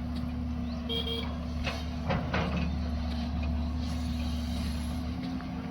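Vehicle engine running steadily, with a short beep about a second in and a few brief clatters soon after.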